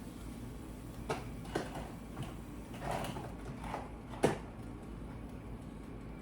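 Light knocks and clicks of kitchen items being handled during cooking, about five in all, the sharpest about four seconds in, over a low steady hum.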